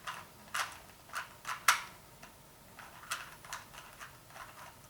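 Plastic clicks of a ShengShou 2x2 speed cube being turned layer by layer: about ten quick, irregular clacks, the loudest a little under two seconds in.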